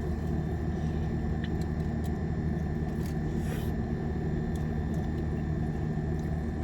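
Steady low mechanical hum, with a few faint clicks and a brief rustle about three and a half seconds in.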